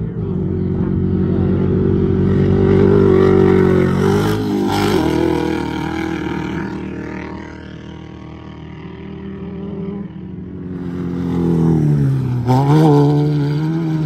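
Off-road race car engines running hard as the cars go by, loudest about three seconds in, fading, then building again to a second pass. Near the end the engine pitch drops briefly and climbs back.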